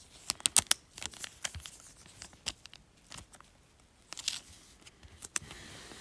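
Clear plastic card sleeve crinkling and crackling as a trading card is handled and slid into it. A quick run of sharp clicks in the first second, then scattered crackles and another cluster about four seconds in.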